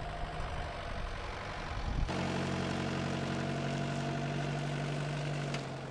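Pickup truck engine running: a rough low rumble that switches abruptly about two seconds in to a steady, even hum as the truck drives off.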